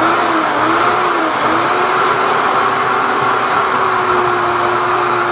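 Drain-cleaning machines running under a kitchen sink, a flexshaft and a suction vacuum clearing a blocked pipe. A loud, steady motor rush with a hum that wavers in pitch, then holds steady from about a second and a half in.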